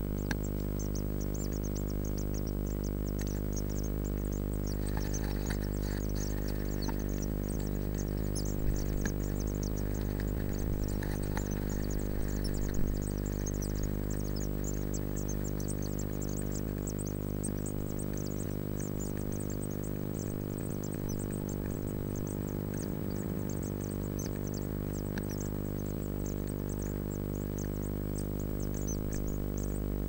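Rapid high cheeping, typical of young Eurasian blue tit nestlings begging, over a louder steady low hum.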